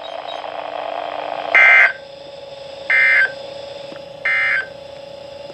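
NOAA Weather Radio's SAME end-of-message code: three short, identical bursts of buzzy digital data tones about a second apart, over steady radio hiss. It marks the end of the severe thunderstorm warning just read.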